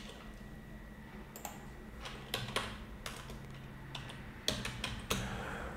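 Computer keyboard being typed on: about ten sharp key clicks, irregularly spaced, most of them in the second half. A faint steady low hum lies beneath.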